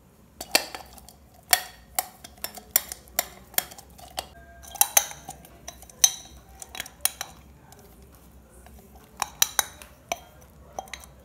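Stainless steel tumblers clinking and ringing as they are handled, greased inside with a silicone brush and set down on a stone floor. The clinks come irregularly in quick clusters, with a short lull about two-thirds of the way through.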